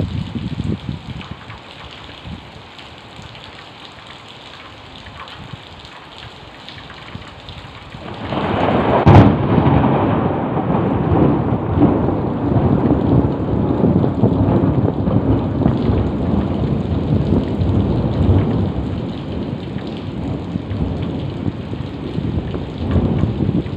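Heavy rain falling steadily. About eight seconds in, thunder breaks with a sharp crack, then a long low rumble of thunder goes on under the rain.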